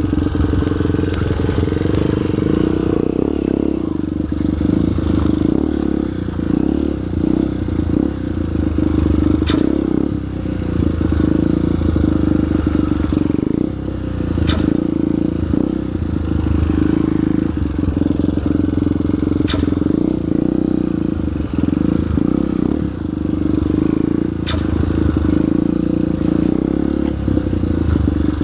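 Single-cylinder four-stroke trail motorcycle engine running under load on a rough, overgrown track, its revs rising and falling constantly. A sharp short click sounds about every five seconds.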